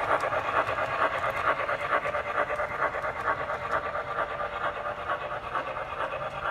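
MTH model 2-8-0 steam locomotive's onboard sound system playing a quick, even steam chuff, about five chuffs a second, growing a little fainter as the engine runs away along the track.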